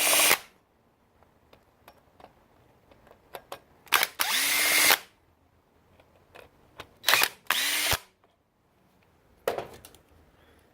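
Power drill spinning out the long side-case screws on a 1972 Yamaha JT2 engine, in three bursts of about a second each and a short fourth one near the end, with small clicks of handling between.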